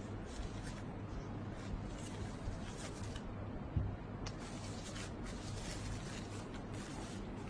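Thin cassava-starch biodegradable carrier bag crinkling and rustling as it is handled, in a run of short crackles. The crackling pauses briefly about halfway, where there is one soft knock.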